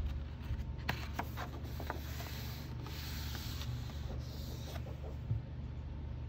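A page of a hardcover picture book being turned by hand: paper rubbing and rustling, with a few light clicks about a second in and a soft thump as the page settles just after five seconds.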